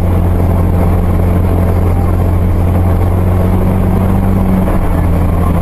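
A car's engine and tyres drone steadily, heard from inside the cabin while driving. The low hum creeps up slightly in pitch and drops back a little after four seconds.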